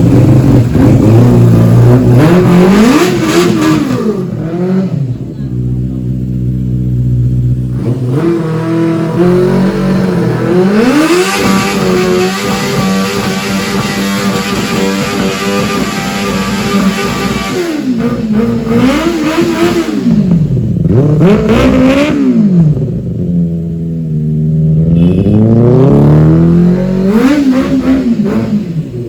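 Superbike engine being revved hard over and over, with its fuel tank off, while its throttle body is cleaned. Several quick blips rise and fall, and in the middle it is held at high revs for several seconds. It is very loud.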